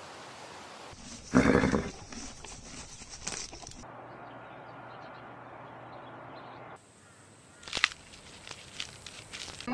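A short animal call, then quiet outdoor background, then a sharp snap and scattered crunching and crackling as an elephant tears and chews palm fronds.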